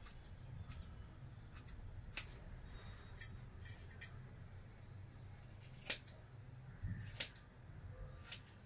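Hair-cutting scissors snipping through long hair while trimming it into a U-cut, in a series of separate sharp snips at irregular intervals.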